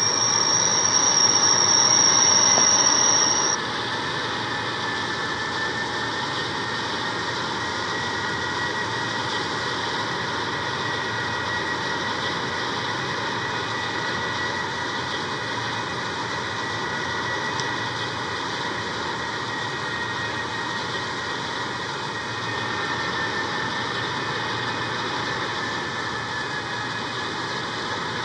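Steady jet-like roar of fire from a burning derailed tank car, with a loud high whistle over it for the first few seconds, then a fainter, slightly wavering whistle.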